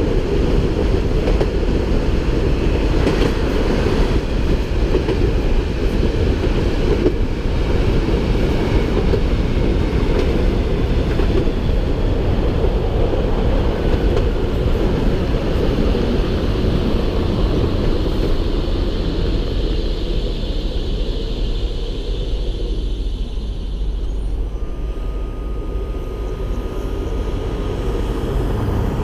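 An Inekon T8M-700IT tram running along its rails, heard from outside the car body with a heavy low rumble. Near the end it slows to a halt, the running noise dies down and a thin steady whine comes in.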